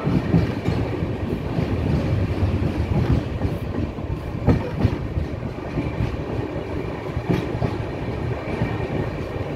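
Indian Railways express passenger coach running along a platform, heard from its open doorway: a steady rumble of wheels on rail with clickety-clack over the joints and a few sharp knocks.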